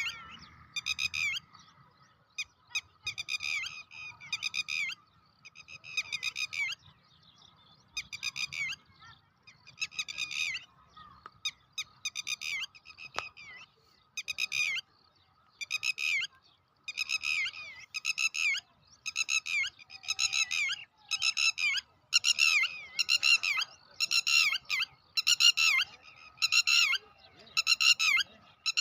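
Birds giving harsh, raspy alarm calls over and over, about one a second, growing louder and more frequent in the second half: agitated scolding of birds whose nest has been robbed of its eggs. A faint steady high tone runs underneath.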